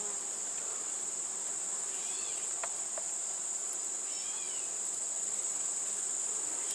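Steady high-pitched trill of a late-summer insect chorus, like crickets, with a few short arched chirps over it and a couple of faint clicks.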